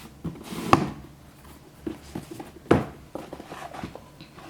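Cardboard shoe box being handled: a few sharp knocks and taps, the loudest just under a second in and again near three seconds, with light rustling and smaller clicks between.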